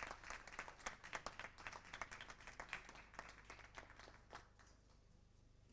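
An audience applauding: many hands clapping, thinning out and dying away about four and a half seconds in.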